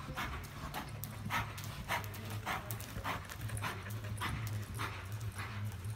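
A horse loping on soft arena dirt: the rhythmic sound of its stride, a soft pulse repeating evenly nearly twice a second.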